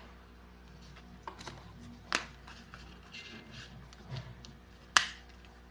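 A few sharp clicks and taps from packaging and accessories being handled during a phone unboxing, the loudest two about two and five seconds in, over faint background music.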